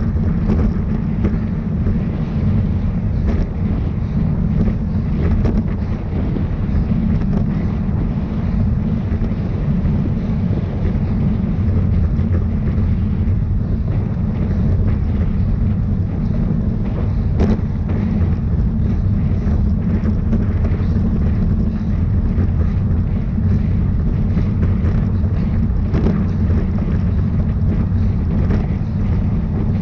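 Steady wind buffeting on the microphone of a camera riding along at speed, a loud low rumble with a few faint clicks.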